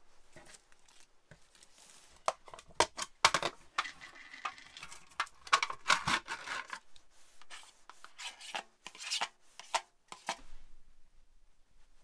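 Food-prep handling noises: a fork scraping raw chicken out of a plastic tray pack, a yogurt tub's seal peeled back and a spoon scooping yogurt into a bowl, making a busy run of scrapes, crinkles and clicks that stops near the end.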